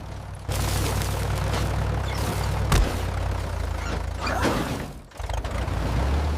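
Tractor rumbling along fast with a loud rushing noise, with a sharp knock about three seconds in; the rushing cuts out near the end, leaving the low engine rumble.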